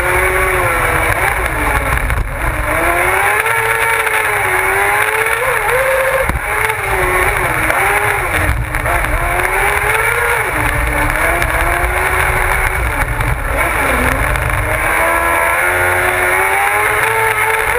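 Onboard sound of a kart cross car's motorcycle engine at race pace, the pitch climbing through the revs and dropping sharply several times at gear changes and lifts for corners. A heavy low rumble of wind and vibration runs under it.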